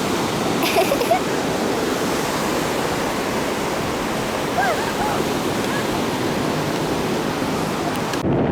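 Ocean surf washing steadily onto the shore, with a few brief faint cries in the background. Near the end the hiss gives way to a low rumble of wind on the microphone.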